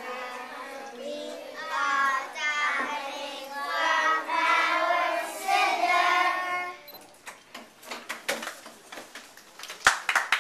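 Group of young boys singing a song together; the singing stops about seven seconds in, followed by scattered hand clapping that grows busier near the end.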